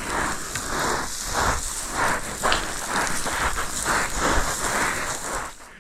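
Footsteps crunching on loose ground, about two steps a second, over a steady hiss; the crunching stops near the end.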